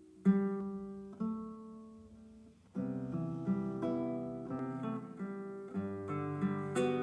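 Acoustic guitar music played back through a Bluetooth speaker: two plucked chords ringing out and fading, then a steadier run of picked notes from about three seconds in.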